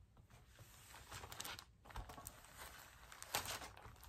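Plastic film crinkling under a cloth rubbed over it, in faint irregular rustles, as glued decoupage paper on a glass block is pressed flat to push out trapped air.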